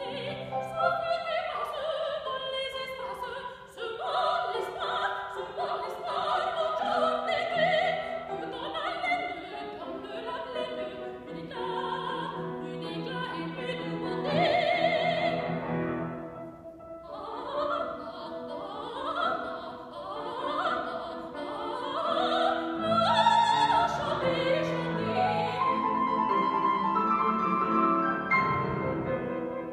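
Soprano singing a French art song in classical operatic style with vibrato, accompanied by a grand piano, holding several long notes.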